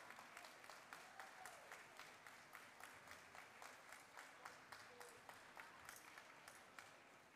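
Audience clapping in a fairly even rhythm, about three claps a second.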